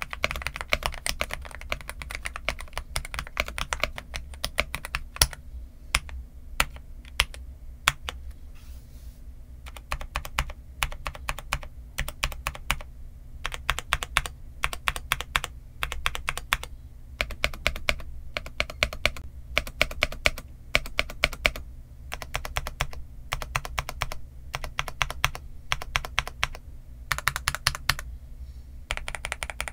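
Typing on a Zuoya GMK81 75% mechanical keyboard with its stock Gateron Milky Yellow linear switches and PBT dye-sub Cherry-profile keycaps. Fast runs of keystrokes at the start and near the end, with slower, spaced presses through the middle.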